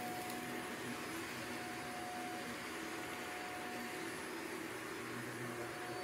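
Shark vacuum cleaner running steadily with a constant whine as it sucks up wood-shaving pet bedding from a mat.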